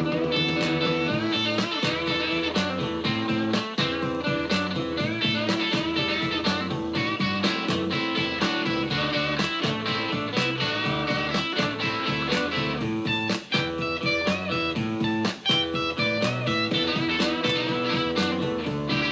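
Instrumental break of a blues-rock backing track: guitar playing over a steady drum beat.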